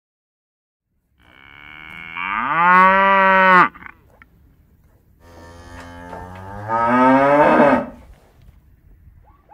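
Cow mooing: two long moos, each rising in pitch, the first starting about a second in.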